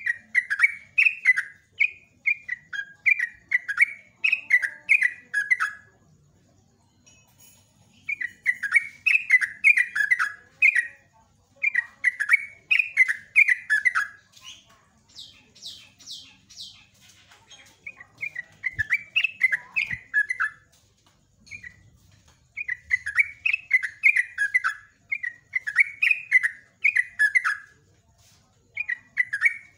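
Yellow-vented bulbul singing: a long series of bubbling phrases, each a quick run of falling notes, with short pauses between them. About halfway through comes a brief run of higher, quicker notes.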